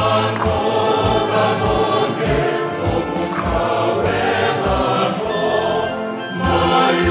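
Mixed choir singing an anthem in several-part harmony, holding sustained chords, with a brief lull between phrases near the end before the voices swell again.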